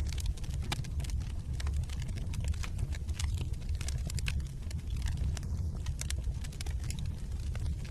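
Wood fire burning in a fireplace: logs crackling with many irregular sharp pops and snaps over a steady low rumble of the flames.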